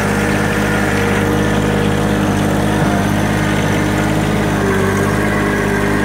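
A John Deere 1-series compact tractor's three-cylinder diesel engine running steadily as the tractor drives.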